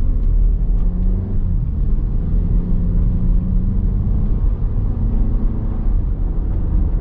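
Audi Q3's 2.0-litre turbocharged four-cylinder engine pulling away from a stop, heard from inside the cabin as a steady low rumble of engine and road noise, with the engine note rising a few times as it accelerates.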